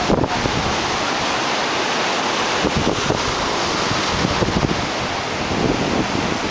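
Surf breaking on the shore in a steady rush of waves, mixed with wind gusting on the microphone.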